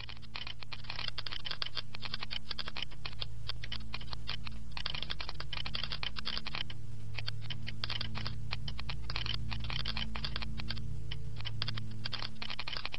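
Computer keyboard typing: rapid clicking in runs broken by short pauses, over a low steady hum.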